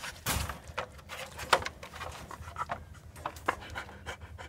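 A husky moving about in a wire dog crate close to the microphone: irregular scratchy rubs and light clicks.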